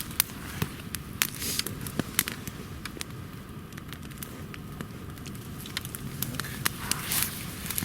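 Campfire of sticks burning well and crackling, with frequent sharp pops and snaps over a steady low hiss.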